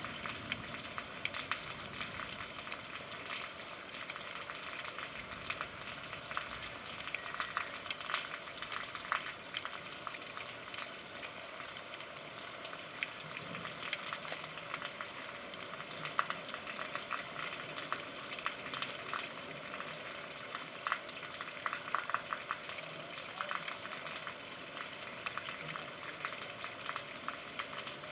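Steady rain falling, with a dense, irregular crackle of drops striking a surface.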